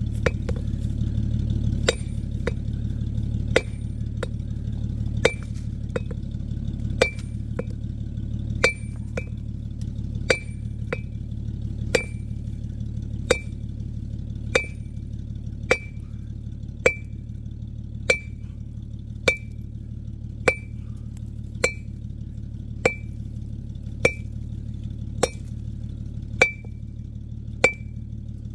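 A metal-headed digging tool chopping into stony ground again and again, about one blow a second, each hit a short ringing clink as it strikes rock while grubbing out deep-rooted weeds. A steady low hum runs underneath.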